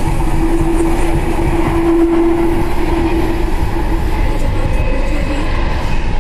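Delhi Metro train running along an elevated track, heard from inside the coach: a loud, steady rumble of wheels on rails. A steady whine runs over it and fades out about three seconds in.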